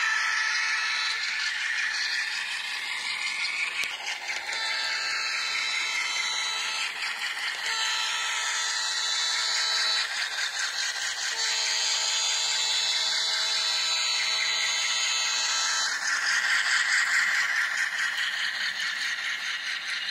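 ESU LokSound decoder in an N-scale Atlas ALCO C-628 diesel model sounding its horn through a tiny speaker. One blast ends about a second in, then three more follow, the last the longest. Under it runs the steady sound of the model locomotive running and rattling on its track.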